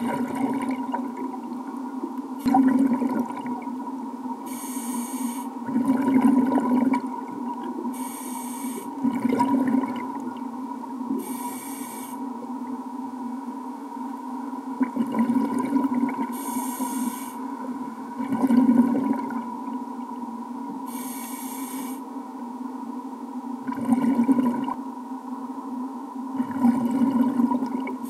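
A scuba diver breathing through a regulator, recorded underwater: a short hiss on each inhale and a louder rush of exhaled bubbles, repeating about every three to four seconds. A steady hum sits under the breathing throughout.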